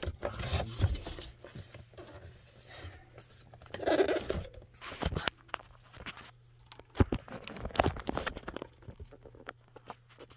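Cardboard appliance box being handled and shifted about: irregular knocks, scrapes and rustling, with louder bumps about 4, 5, 7 and 8 seconds in.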